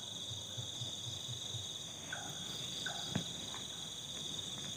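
Night chorus of crickets: a steady, high-pitched trilling in several layered bands. Twice, a few seconds in, another animal gives short, faint calls.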